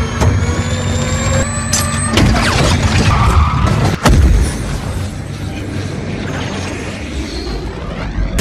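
Action-film soundtrack of a burning car racing: low booms and engine noise under a music score, with a sharp hit about four seconds in.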